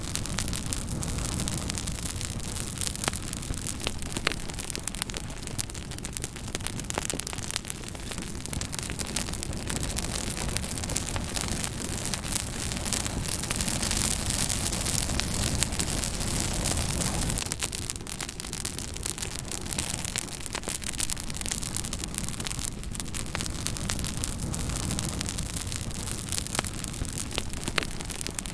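Fire crackling: a steady hiss with frequent sharp pops and snaps, louder and hissier for a few seconds around the middle.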